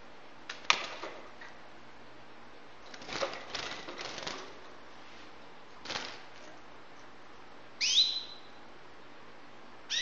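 White canary moving about its wire cage: a few sharp knocks and wing flutters against the bars and perches, then one short upward-gliding call note about eight seconds in, with another starting at the very end.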